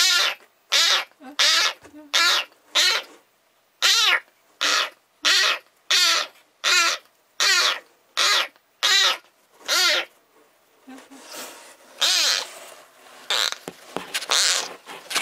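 Young black-and-white kitten meowing desperately and without pause, one short high call about every two-thirds of a second; after about ten seconds the calls come less evenly and sound rougher.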